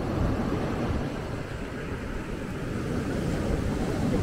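Wind buffeting the microphone over a steady wash of sea surf: a low, rumbling noise.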